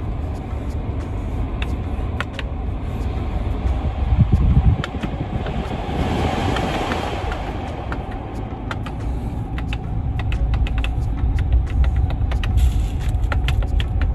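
Steady low rumble of a running vehicle, with scattered light clicks and a louder low thump about four seconds in.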